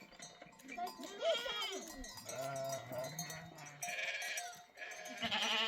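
Sheep and goats bleating in a pen, several separate wavering calls one after another, the loudest near the end.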